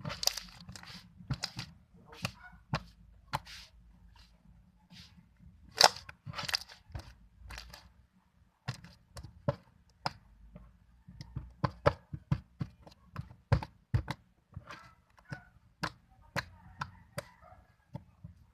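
Homemade slime being squeezed and stretched by hand, giving irregular sharp pops and clicks, at times several a second.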